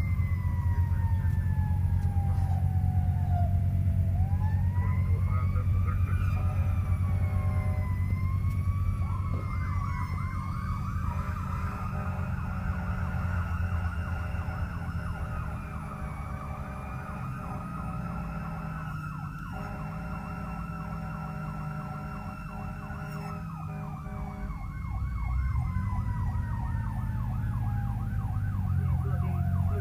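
Fire engine siren heard from inside the cab, wailing slowly up and down, with a faster yelping warble over it at times. Under it runs the steady low drone of the truck's engine.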